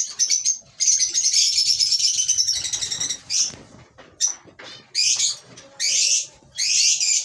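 Lovebirds chattering with rapid, high-pitched calls, a dense run of chatter at first, then several separate loud bursts of shrill calling.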